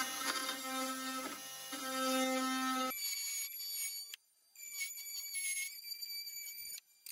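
Oscillating multi-tool buzzing at a steady pitch as its blade cuts into the laminated plywood strips of a curved corner, for about three seconds. After that a thinner, higher power-tool whine takes over and cuts out briefly twice.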